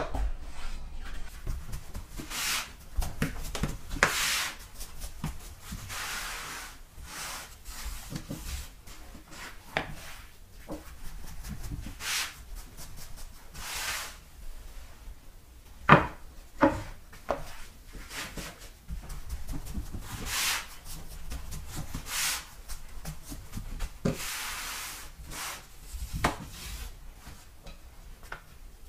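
Wooden rolling pin rolling and rubbing over buckwheat noodle dough on a wooden board, a swish every second or two as the dough is stretched out, with a few sharper wooden knocks, the sharpest about halfway through.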